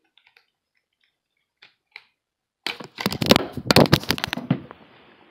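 Faint small plastic clicks from a plastic opening tool prying at a phone's inner cover, then, a little under three seconds in, a loud clatter of knocks and rattling from an accidental knock or fall, dying away within about two seconds.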